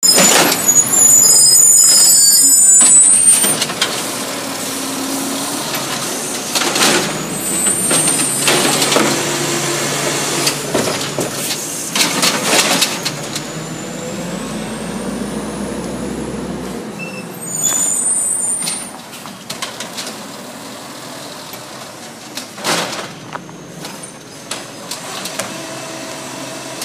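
Natural-gas-powered automated side-loader garbage truck at work: the engine runs steadily while the air brakes let out loud hisses, the first in the opening seconds and more near the middle. Knocks and bangs come as the automated arm grabs, lifts and shakes out the yard-waste carts.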